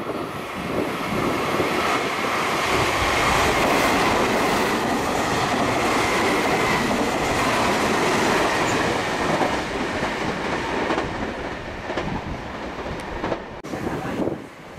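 Meitetsu 2200 series electric train running through a station at speed: a loud, steady rush of wheels on rail with clickety-clack over the rail joints and a faint high whine for a few seconds. The noise cuts off abruptly near the end.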